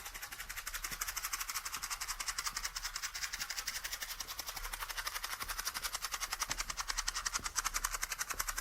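Matchbox being shaken, the matches inside rattling in a rapid, even rhythm of several shakes a second.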